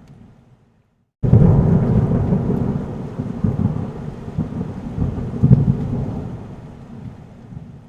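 A long roll of thunder in a storm, starting suddenly about a second in with a deep rumble and slowly dying away.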